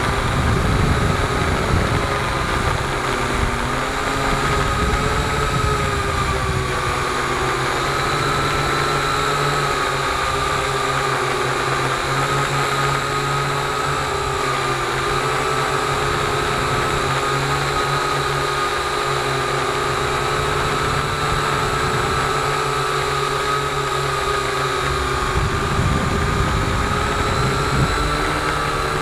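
Multirotor drone's motors and propellers whining steadily while it hovers and turns, the pitch wavering slightly as the motor speeds adjust. Air buffeting the on-board microphone adds a low rumble.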